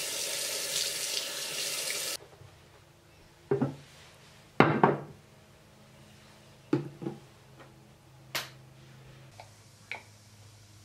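Bathroom sink faucet running for about two seconds, then shut off. A few short knocks and bumps follow, the loudest about four and a half seconds in.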